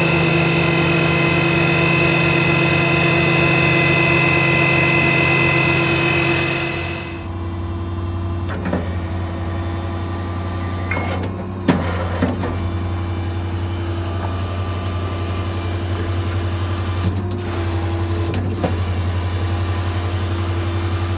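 Ford 6.7 Power Stroke V8 diesel running steadily with a high whine on top; about seven seconds in the whine and hiss stop, leaving the steady low idle with a few sharp clicks and knocks.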